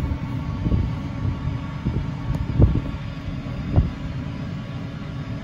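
Wind rumbling and buffeting on the microphone, with a few dull thumps, the strongest about two and a half and four seconds in. A faint steady hum runs underneath.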